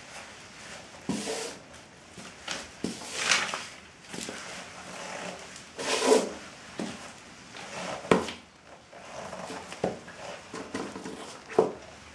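Muddy patent leather dress shoes stepping and shuffling on newspaper, pressing onto a second pair of patent leather shoes: irregular thuds, scuffs and paper rustles, the loudest about 6 and 8 seconds in and again near the end.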